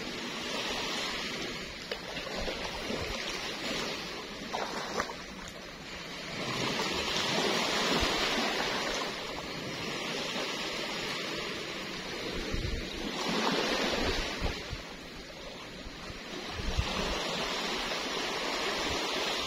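Small sea waves washing against the shore, the rush of water swelling and fading every few seconds.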